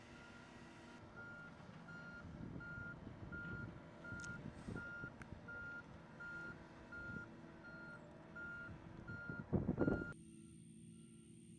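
Motion alarm of a wheeled gantry carrier beeping steadily, about one and a half beeps a second, over the low rumble of the carrier's engine as it moves a rocket tank. The rumble swells briefly just before the sound changes abruptly near the end, and the beeps carry on more faintly.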